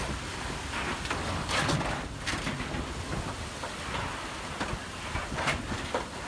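Wind-driven rain and gusting wind of a microburst thunderstorm, a dense steady rush of noise with a few brief harsher gusts or spatters every couple of seconds.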